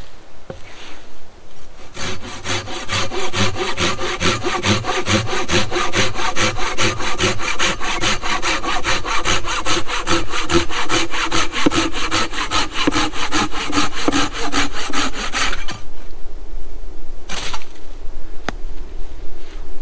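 Red-handled hand saw cutting through a thin wooden pole in quick, steady back-and-forth strokes, about four a second. It starts a couple of seconds in and stops a few seconds before the end, followed by a brief rustle and a click.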